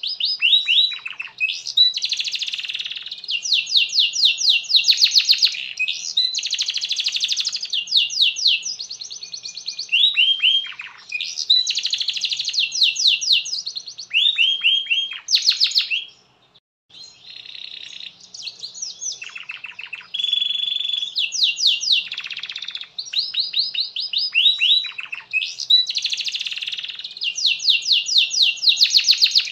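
Canary singing a long, continuous song of fast trills, each a quick run of repeated high notes, mixed with sweeping notes, with a brief pause about sixteen seconds in.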